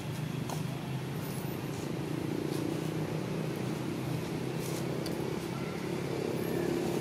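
A steady low engine drone, like a motor vehicle running nearby, swelling slightly after a couple of seconds. Faint short high chirps sound over it.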